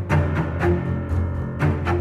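Background music: low held bass notes with a few sharp drum hits.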